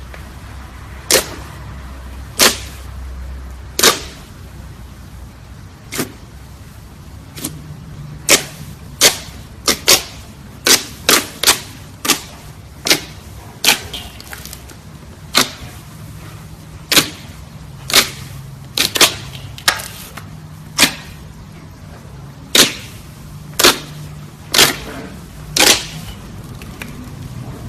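Slime being pressed and poked, giving sharp popping clicks as trapped air bursts, irregularly spaced at about one a second.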